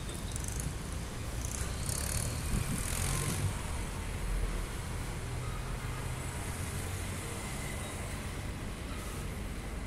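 A vehicle engine running steadily, a low hum, with a short rise in hissing noise about two to three seconds in.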